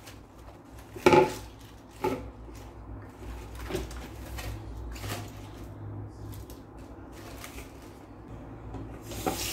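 A few light knocks and clatters of kitchenware being handled, the loudest about a second in and smaller ones around two, four and five seconds in.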